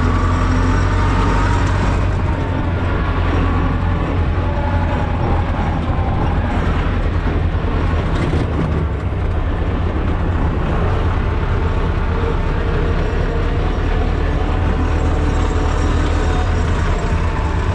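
Tractor diesel engine running steadily under way, heard from inside the cab as a loud, even low drone.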